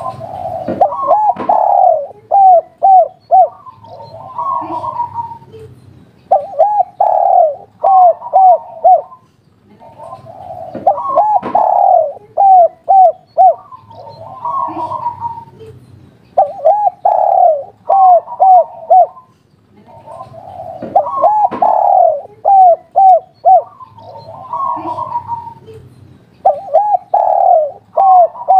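Spotted dove (derkuku/tekukur) cooing over and over in the 'kuk 3' coo type, each phrase a longer note followed by a quick run of short coos, a new phrase starting about every five seconds.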